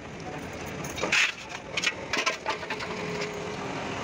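Steel valve springs, retainers and keepers clinking as they are handled and set onto a diesel cylinder head: a few short, sharp metallic clicks about one to two and a half seconds in, over steady workshop background.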